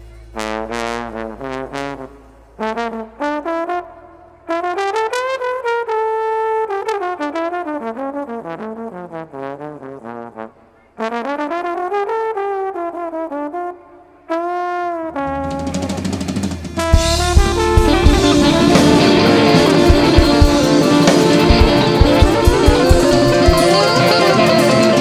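Trombone playing a solo melody in phrases with short breaks, its pitch sliding up and down. About two-thirds of the way through, the full band comes in loudly with drum kit and guitars.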